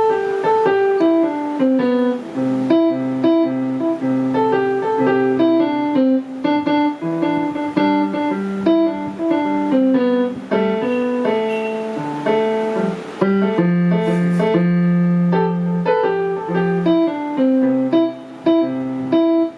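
Akai MPK Mini Play keyboard played with a piano sound through a speaker: a melody of separate notes over lower held bass notes.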